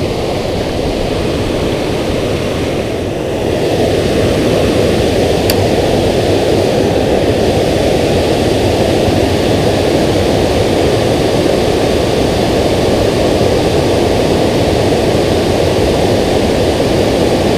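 Steady rushing of water pouring over a low dam spillway, getting louder about three and a half seconds in.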